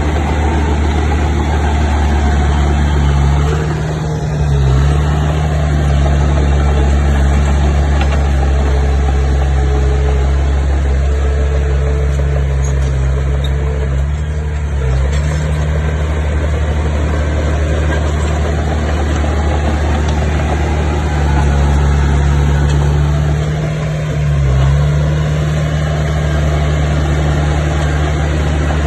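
Bulldozer's diesel engine running steadily under work, its note briefly dipping and recovering three times.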